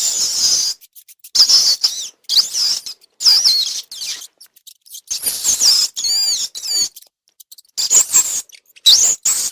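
Rats squeaking in a run of short, high-pitched bursts, about seven of them, with the squeaks sliding up and down in pitch and brief pauses between.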